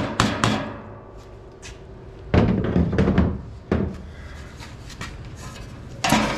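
Repeated sharp knocks from hammer blows on a truck's exhaust elbow as it is driven loose: two near the start, a quick cluster of several between about two and four seconds in, and one more near the end.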